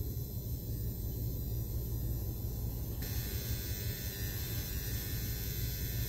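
Steady low rumble with a faint hiss inside a car cabin; the hiss grows a little louder about three seconds in.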